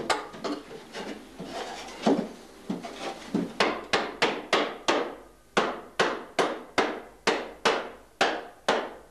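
Hammer blows on a wooden barrel being made by a cooper: a few softer knocks at first, then from about three and a half seconds in a steady run of sharp strikes, about three a second.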